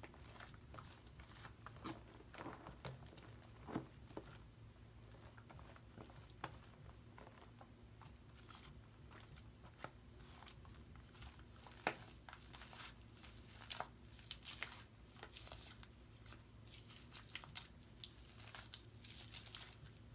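Hands squeezing and kneading thick shaving-cream foam, giving faint squishing and fine crackling of popping bubbles, scattered through and thicker in the second half, with one sharp click about twelve seconds in.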